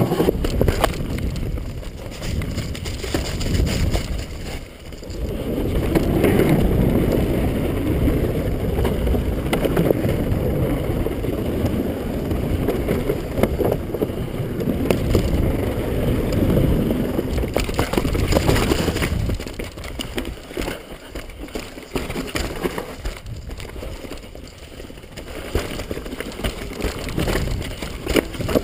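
Downhill mountain bike ridden fast over dirt, rocks and wooden boardwalk: tyres rumbling and the bike rattling, with wind buffeting the camera microphone. Loudest through the middle, then quieter with sharp rattles.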